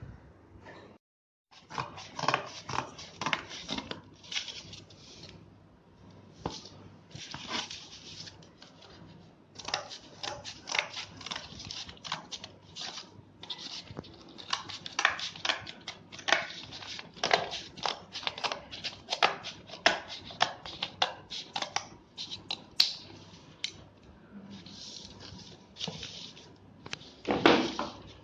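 Corrugated cardboard being folded, creased and pressed flat against a hard floor by hand: repeated scratchy scrapes and rustles, with a louder scrape near the end.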